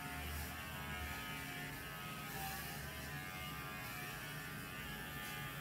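Electric pet hair clippers running with a steady hum while trimming a small dog's coat.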